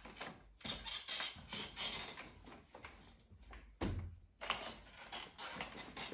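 Manual wheelchair being turned back and forth on a tiled floor in a tight doorway: soft irregular clicks and rattles from the wheels and frame, with a dull knock about four seconds in.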